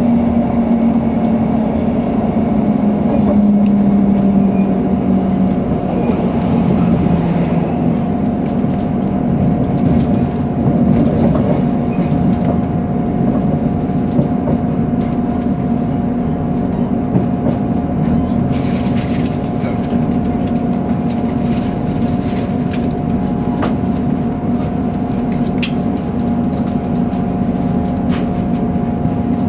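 Running noise of a diesel passenger train heard from inside the carriage: a steady rumble and engine hum, with a lower note dropping a few seconds in. Scattered clicks from the track come in the second half.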